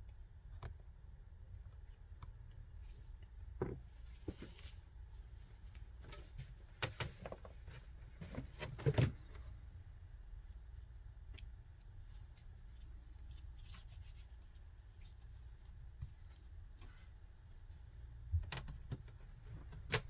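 Scattered small clicks, taps and scrapes of handling an opened laptop's parts and tools, loudest about nine seconds in, over a low steady hum.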